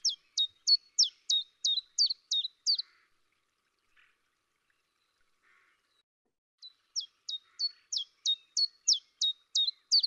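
Common chiffchaff singing: evenly spaced, sharp, falling notes at about three a second, the metallic two-note 'chiff-chaff' song. Two phrases, the second starting after a pause of about three and a half seconds.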